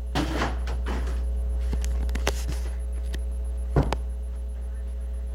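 A basketball hitting something, a sharp double thud about two-thirds of the way in, among a few scuffs and shuffles, over a steady low hum.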